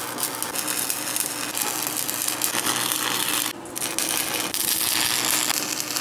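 Stick (arc) welder laying a weld on steel square tubing: a steady crackle and sizzle of the arc. It dips briefly about three and a half seconds in, then picks up again.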